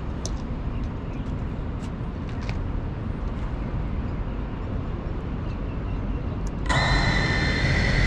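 A steady low outdoor rumble. About seven seconds in, the GEPRC CineLog 35 FPV drone's motors arm and start spinning at idle, a sudden, louder, steady whine of several pitches at once.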